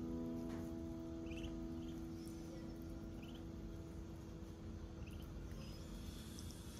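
A few faint, short high peeps of a duckling, over a keyboard chord that keeps ringing and slowly fades.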